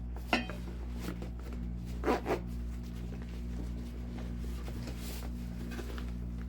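Metal parts of a portable tabletop fire pit knocking and clinking together as they are handled: one knock just after the start and two close together about two seconds in, over a steady low hum.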